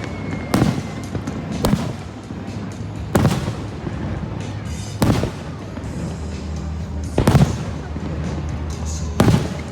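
Aerial fireworks shells bursting: about six loud booms at irregular intervals of one to two seconds, each followed by a short rumble, with music playing underneath.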